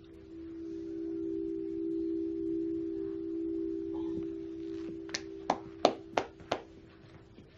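A steady two-note drone of background score from the TV episode, held through, with five sharp hand claps in an even rhythm, about a third of a second apart, starting about five seconds in.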